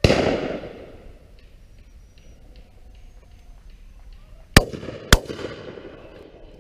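Shotgun shots: one right at the start that rolls away over about a second, then a quick double from a 12-bore Laurona, two shots about half a second apart near the end, each followed by a fading echo.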